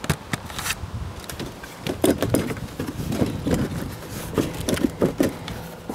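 Plastic body panels of an ATV being pulled and pried by hand: irregular knocks, clicks, scrapes and creaks as the footwell cover is worked loose from where it locks under the fender.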